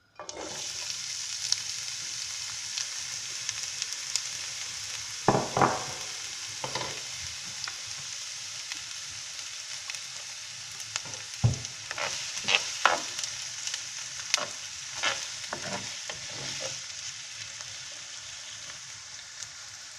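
Chopped onion frying in hot oil in a pan, the sizzle starting suddenly as the onion goes in. Through the middle come repeated clicks and scrapes of stirring against the pan.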